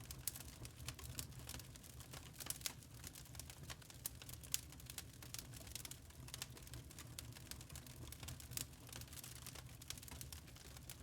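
Wood log fire crackling in a fireplace: many small irregular pops and snaps over a low, steady rumble of the burning fire, with a sharper pop about four and a half seconds in.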